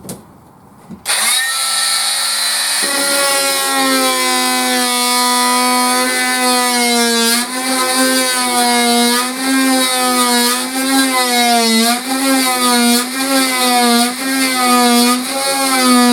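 Electric power saw cutting through wooden ceiling timber, starting about a second in; its loud whine dips and recovers in pitch again and again as the blade bites into the wood. Very noisy.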